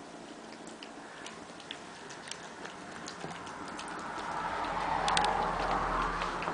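Kittens eating: scattered small, irregular clicks and crunches of food and chewing, with a louder rustling swell from about four seconds in.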